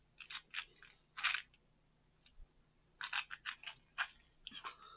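Tic Tac mints rattling and clicking in their small plastic box as they are shaken out into a hand, in several short clusters of clicks.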